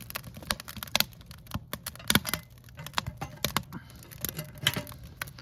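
Wood fire crackling inside a tent stove: irregular sharp snaps at uneven intervals, a few louder than the rest.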